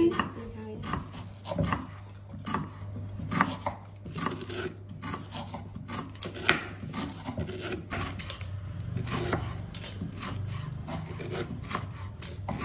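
Kitchen utensil working food on a wooden surface: a string of irregular knocks with rasping and scraping between them, over a steady low hum.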